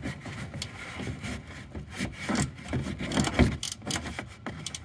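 13 mm wrench backing out a bracket bolt on the coolant bypass valve, giving irregular metal clicks and scraping as the bolt spins loose.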